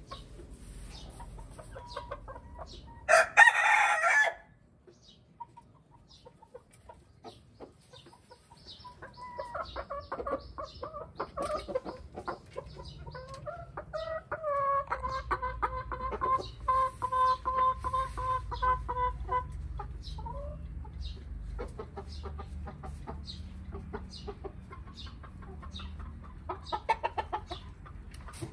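Domestic chickens clucking. There is a loud, short call about three seconds in, long drawn-out pulsing calls through the middle, and a quick run of clucks near the end.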